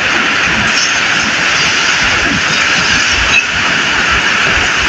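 Jet of water from a garden hose spraying onto a wet, muddy concrete floor: a steady hiss and splash as flood mud is washed off.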